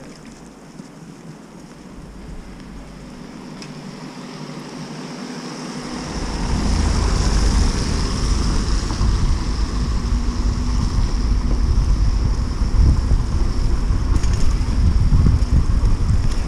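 Wind buffeting the microphone of a camera on a moving bicycle, with a steady hiss underneath; the buffeting comes in about six seconds in and stays loud.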